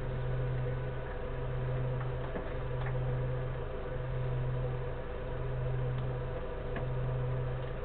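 A steady low mechanical hum that swells and dips regularly, about once every second and a half, with a few faint ticks.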